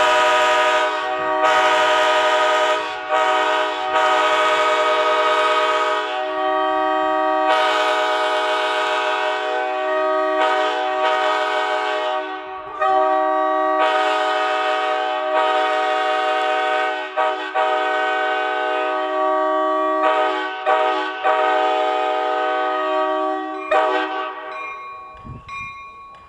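Nathan K5HA five-chime and K3HA three-chime locomotive air horns sounding a loud, steady chord in long blasts, with a few brief breaks where the notes change. The chord stops shortly before the end and fades away.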